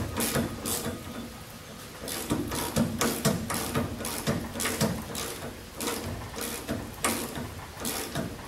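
Socket ratchet wrench clicking in runs of quick back-and-forth strokes as a nut is run down on an engine-mount bolt. There is a pause about a second in, then more runs of clicks with short gaps.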